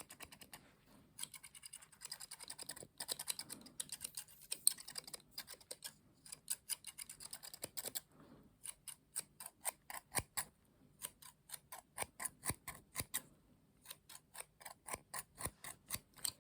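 Close-up light tapping and clicking, typical of ASMR triggers: dense and crackly in the first half, then an even run of separate taps at about three a second.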